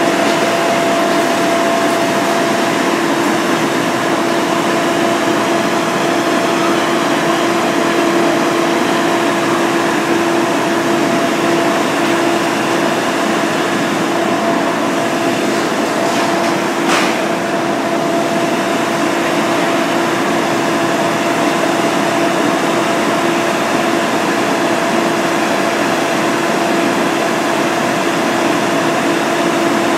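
Steady, loud drone of an engine running at constant speed, with a constant hum, typical of fire apparatus working at a fire. One short sharp click about seventeen seconds in.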